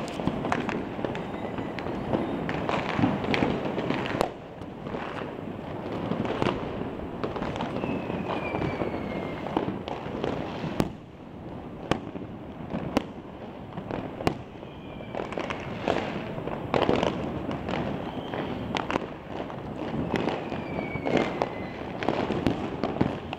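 Fireworks and firecrackers going off all around at once: a constant crackle and rumble of many distant bangs, with sharper single bangs every second or so and now and then a short whistle falling in pitch.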